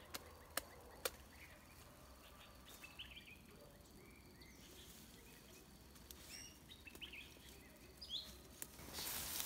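Faint outdoor background with a few short bird chirps scattered through it, three sharp clicks in the first second, and a rustle of footsteps through weeds and brush near the end.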